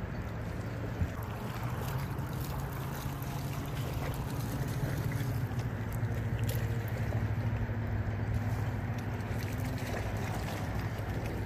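Steady low hum under a noisy wind rush on the microphone, the hum swelling somewhat through the middle. There is one small click about a second in.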